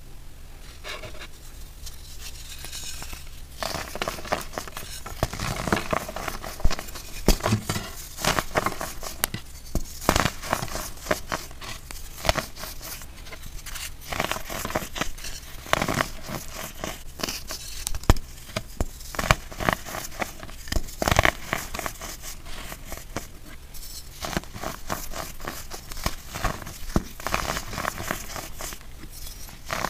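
Cup-shaped blocks of compressed baking soda being squeezed and crumbled by hand: a dense run of crunching and crackling with frequent sharper cracks as pieces break, starting a few seconds in.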